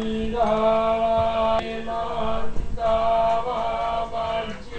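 Buddhist monks chanting Pali verses, drawing out long tones on one steady pitch with only brief breaks.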